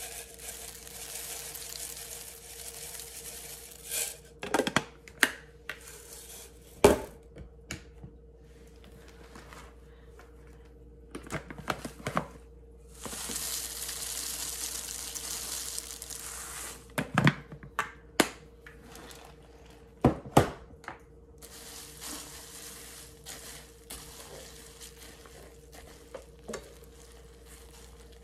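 Freeze-dried carrots and peas poured from plastic jars into a stainless steel pan, a dry rattling hiss in three spells, with sharp knocks and clinks of containers against the pan in between. A steady faint hum runs underneath.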